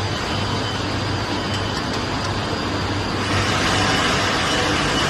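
Continuous mesh-belt heat-treatment furnace line running: a steady mechanical hiss and rumble with a low hum. About three seconds in it grows a little louder and hissier.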